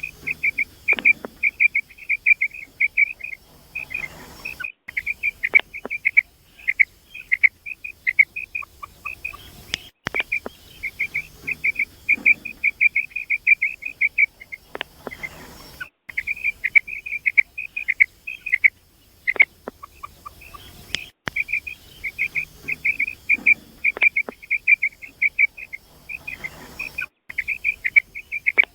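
Female common quail calling: quick runs of short, high chirping notes lasting a few seconds each, repeated after brief pauses.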